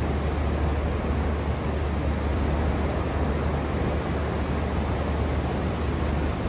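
Steady wash of ocean surf with wind noise on the microphone, an even hiss over a constant low rumble.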